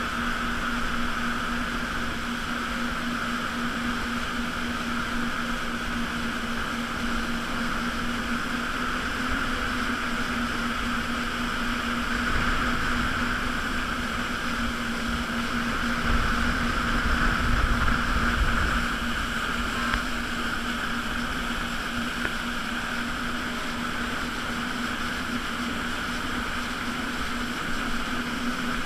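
Jet ski engine running steadily at speed, a constant drone over the hiss of water spray. A low buffeting grows louder for a few seconds past the middle.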